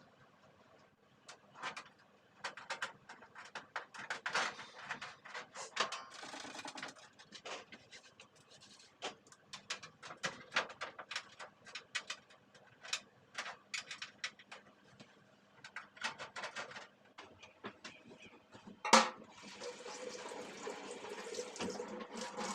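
Kitchen sink work: a run of small clicks and clatters of things being handled, then a sharp knock about 19 seconds in and tap water running into the sink.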